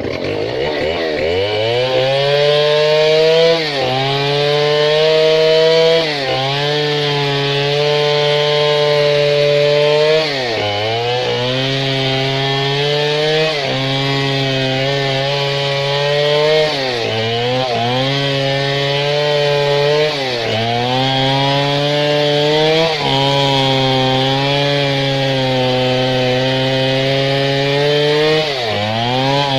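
Stihl 070 two-stroke chainsaw revving up in the first second or two, then running at full throttle while cutting into a large tree trunk. Its pitch sags briefly about seven times, every few seconds, as the chain bogs in the wood, and picks up again each time.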